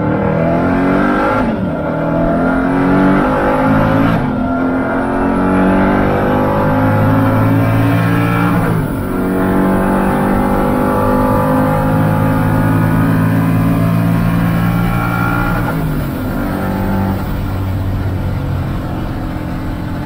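Koenigsegg Agera's twin-turbo V8 heard from inside the cabin, accelerating hard through the gears. Its pitch climbs and drops sharply at each upshift, about a second and a half, four and nine seconds in, then rises slowly in a tall gear. It eases off a little about sixteen seconds in.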